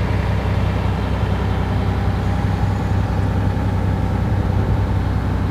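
Volvo EC460 excavator's diesel engine running steadily and smoothly, heard from inside the operator's cab as an even, low hum.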